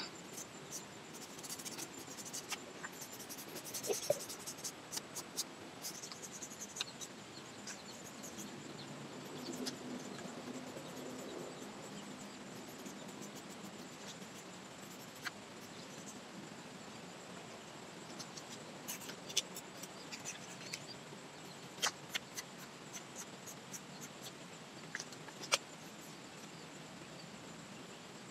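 Toothbrush scraping and scratching against lychee tree bark: a run of short, light scratchy clicks, thick in the first several seconds and then scattered.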